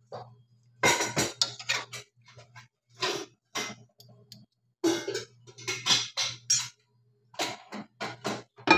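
A metal ladle clinking and knocking against the side of a metal cooking pot while stirring a chunky chicken and vegetable stew: irregular sharp clanks, some briefly ringing, over a steady low hum.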